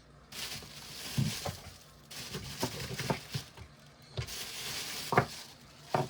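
Rustling handling noise of a leather knife sheath and its contents being picked up and moved in the hands, in three stretches, with several light clicks and knocks; the sharpest knock comes near the end.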